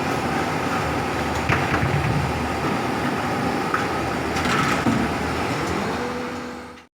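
Steady running noise of a plastic injection moulding machine on the factory floor, a constant hum with a few faint clicks, fading out near the end.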